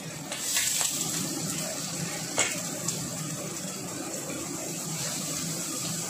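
Food in a wok on a gas flame hissing and bubbling once the lid is lifted off, with a sharp metal clink about two and a half seconds in and a smaller one half a second later.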